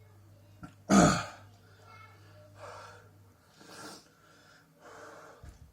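A man breathing hard against the burn of very hot chilies: one loud, sharp gasp about a second in, then three softer breaths in and out.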